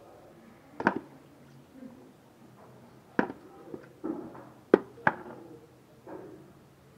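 A knife chopping through chicken: a handful of sharp, separate chopping knocks, two of them close together about five seconds in.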